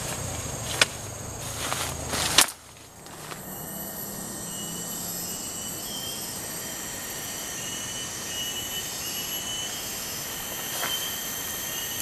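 Footsteps and rustling through thick undergrowth, with a sharp click about two and a half seconds in where the sound cuts abruptly. After the cut, a steady shrill insect drone with a wavering high tone runs on.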